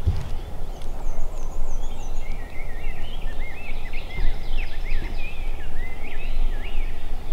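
Low rumble of wind on the microphone, with a small songbird singing a run of quick, up-and-down chirping notes for several seconds. There is a short bump right at the start.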